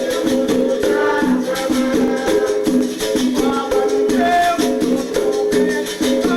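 Capoeira music playing, with shaker and tambourine-like percussion over a steadily repeating pattern of low pitched notes.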